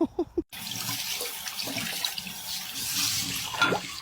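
Steady rush of running water, starting after a sudden cut about half a second in.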